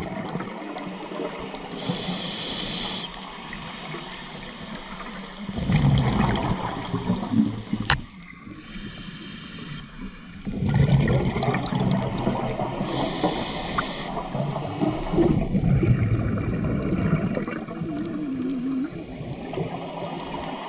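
Scuba diver breathing through a regulator underwater: a short hiss on each inhale, then a longer gurgling rush of exhaled bubbles, in a slow cycle of about three breaths.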